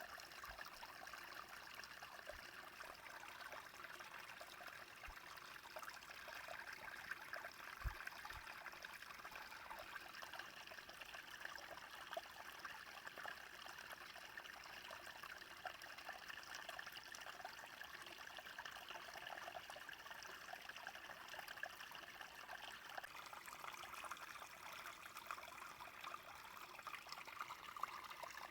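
Small brook flowing, a steady, soft trickling babble of water. There is a brief low thump about eight seconds in.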